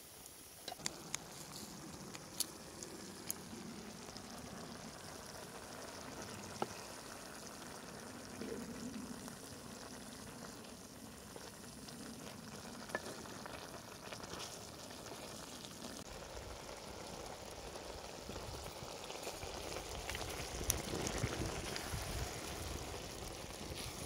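Risotto simmering and sizzling in stock in a cast-iron skillet over a wood fire, stirred with a wooden spoon, with scattered sharp clicks. A low rumble builds in the second half.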